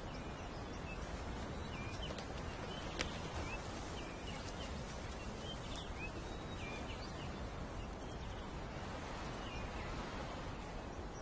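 Outdoor wildlife ambience: a steady background rumble and hiss with scattered short, faint, high chirps, and a single sharp click about three seconds in.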